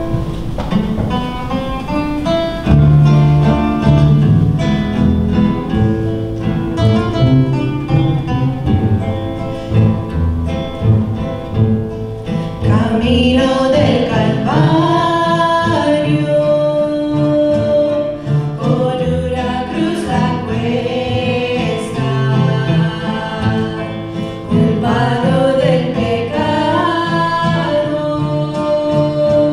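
Spanish-language gospel hymn with acoustic guitar accompaniment and a low bass line. The instrumental introduction runs for about the first half, then two women's voices come in singing together.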